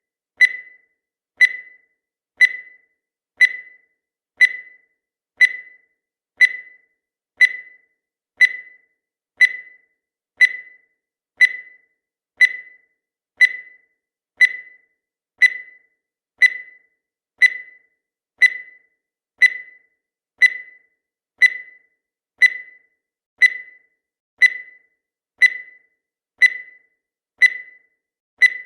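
Countdown timer sound effect: a short, high-pitched electronic beep once every second, each one dying away quickly.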